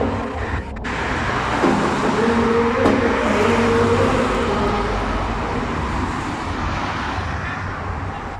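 Road traffic running steadily, with a pitched engine drone through the middle.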